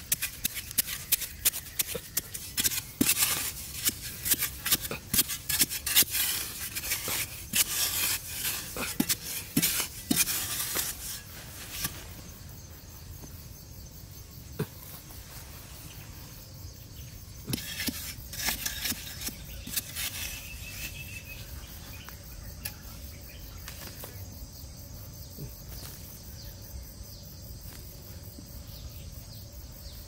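Digging in dry, sandy soil: a wooden stick jabbing and scraping at the bottom of a small hole in rapid strokes through the first twelve seconds, then another short run of scraping about eighteen seconds in as loose earth is scooped out by hand. In the quieter stretches insects buzz steadily.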